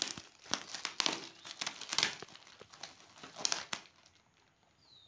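Glossy plastic packaging crinkling in irregular bursts as hands grip and unwrap it, dying down near the end.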